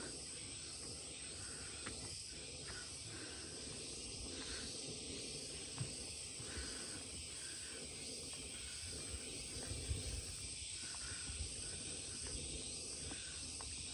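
Steady, high-pitched drone of forest insects, with faint chirps repeating around it and a few soft footsteps.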